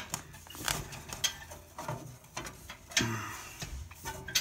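Irregular metallic clicks, scrapes and knocks as the steel catalytic combustor housing of a wood-burning insert is pried and slid apart by hand, with a duller knock about three seconds in. The shell is sticking because it has warped over burn cycles.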